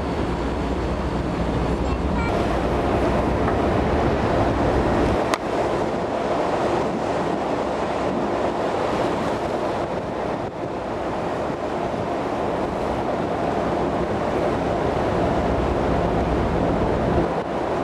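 Steady rush of wind on the microphone and the wash of the sea, heard from the open deck of a moving ferry. One short knock comes about five seconds in.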